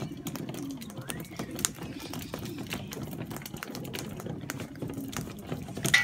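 Sulphur-crested cockatoos pecking and cracking seed off a corrugated metal surface: a dense run of irregular small clicks and taps over a low steady hum, with a short loud cry right at the end.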